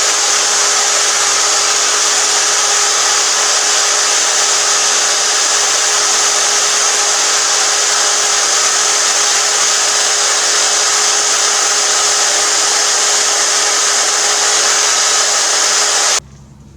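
Electric drill running steadily with a wire wheel brushing carbon off a Briggs & Stratton engine's intake valve: a steady motor whine under a loud hiss of wire on metal, cutting off suddenly near the end.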